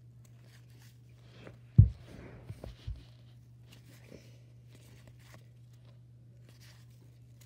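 Baseball cards being handled and shuffled by hand, with one sharp low thump about two seconds in and a couple of lighter knocks just after, over a steady low hum.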